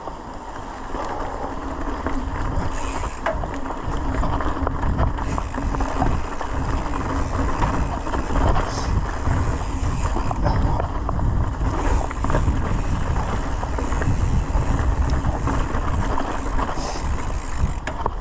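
Mountain bike rolling along a dirt forest trail: steady tyre and drivetrain noise with small rattles and knocks, under heavy wind rumble on the microphone.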